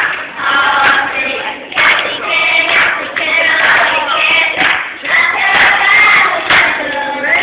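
Church choir of children singing together, with brief sharp sounds cutting in now and then.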